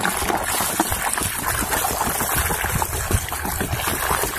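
Water splashing and sloshing in a bucket of soapy water as a plastic toy figure is scrubbed by hand, with a stream of water pouring into the bucket.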